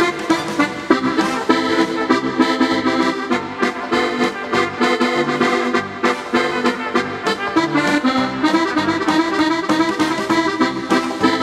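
Button accordion playing a lively tune, the melody running over a steady rhythmic bass.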